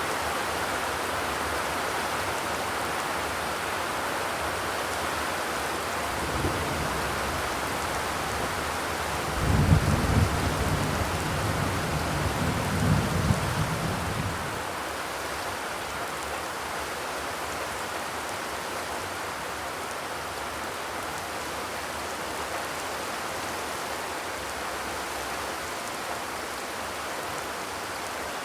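Steady rain falling on a zinc roof. A low rumble comes in about six seconds in, is loudest from about ten to fourteen seconds, then dies away.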